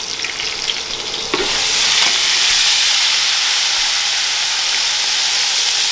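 Chicken pieces deep-frying in a pot of hot oil: a steady sizzle that jumps louder about a second in and then holds.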